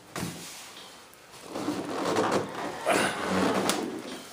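Handling noise of a fiberglass RC jet fuselage: hands rubbing and scraping over the shell for about two seconds, with a sharp click near the end.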